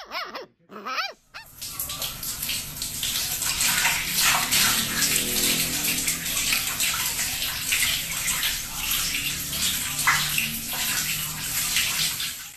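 Water running steadily into a large plastic bucket, starting about a second in. Before it, a puppy gives a couple of short, high yelps.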